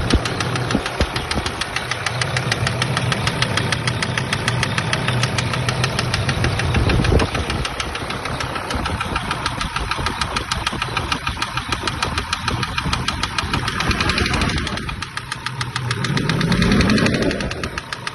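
SsangYong Rexton II engine running with a rapid, steady knock after losing all its oil, revved briefly near the end. The owner rules out the injectors and names a hydraulic lifter as a possible cause.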